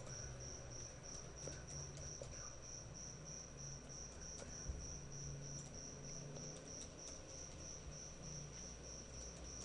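A faint, high-pitched tone pulsing evenly about three times a second, over a low hum, with a few faint keyboard clicks as a password is typed.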